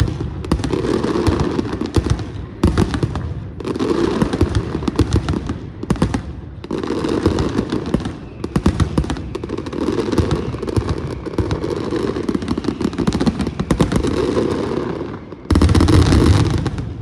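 Fireworks on a castillo, a fireworks tower, crackling and popping in rapid, dense runs broken by short pauses. A louder run near the end cuts off suddenly.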